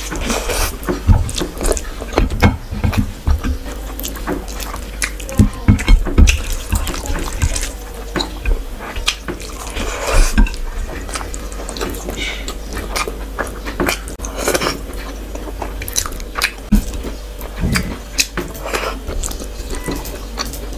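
Close-miked eating sounds of a person chewing rice and curry eaten by hand: a run of wet smacking and squelching mouth clicks, loudest in clusters, with the squish of fingers mixing rice on the plate.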